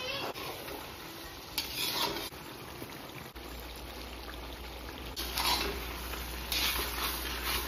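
Meat frying in a black iron wok, sizzling steadily, while a spatula stirs and scrapes the pan in a few short bursts.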